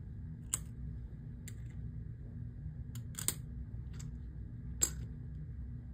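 Silver rounds being handled: about six short, sharp clicks and taps at uneven intervals, over a steady low hum.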